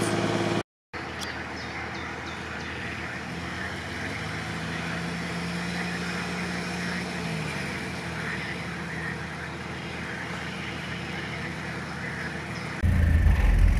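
Engine of an off-road vehicle running at a distance as it creeps along a forest track, its note rising about four seconds in and dropping back a few seconds later. After a brief gap in the sound near the start, the engine suddenly becomes much louder and closer near the end.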